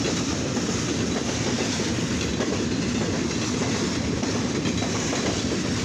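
Cars of a rail train (racked cars carrying ribbon rail) rolling past, making a steady, continuous rumble of steel wheels on the track.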